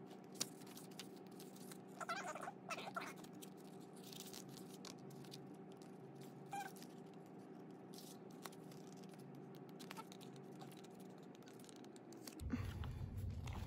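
Album photobook pages being flipped through by hand: soft paper rustles and flicks over a steady low hum. A brief higher-pitched sound comes about two seconds in, and a low rumble sets in near the end.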